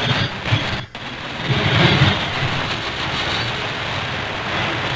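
AM shortwave broadcast signals in the 49-metre band received on an SDR, heavy with static and fading. A brief dropout about a second in as the scanner steps from 5,980 to 5,985 kHz, then a weak station under steady static.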